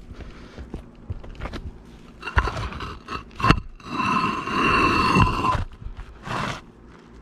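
Bricks knocked down and dragged across granule-surfaced roll roofing. Two sharp knocks come first, then a loud scrape lasting about a second and a half, and a shorter scrape near the end.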